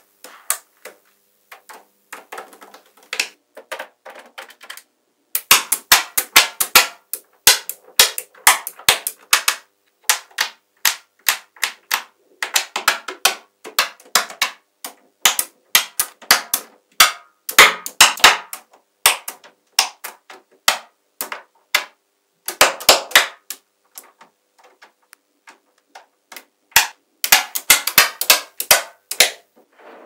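Small metal magnetic balls clicking and snapping together as rows and blocks of them are pressed onto a slab of balls, in quick clusters of sharp clicks. Sparse and soft for the first few seconds, dense from about five seconds in, with a short lull near the end.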